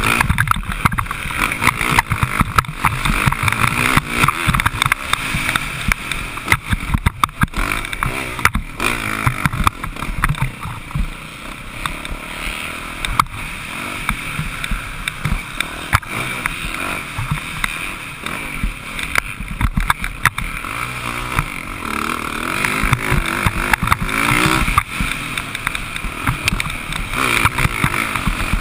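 Motocross dirt bike engine revving up and down as it is ridden hard around a track, muffled through a mounted camera's housing, with wind rush and frequent knocks and rattles as the bike hits bumps and jumps.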